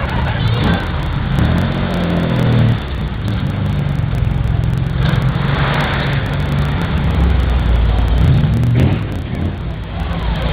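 Engines of vintage cars running as they drive slowly past one after another, one engine revving up in the first couple of seconds and another rumbling louder as it passes near the end.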